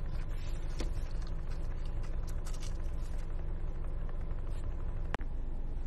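Steady low rumble with no distinct events, broken by a brief dropout about five seconds in.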